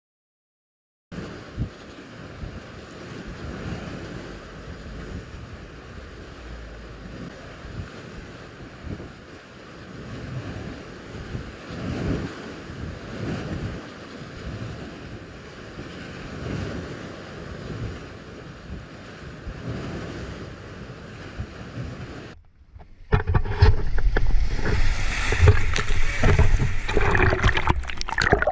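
Rough sea with waves breaking and wind buffeting the microphone, rising and falling in swells. About three-quarters of the way through it cuts abruptly to a much louder, closer rush of water.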